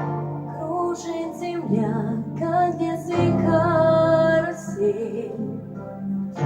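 A female voice singing a slow song over instrumental accompaniment.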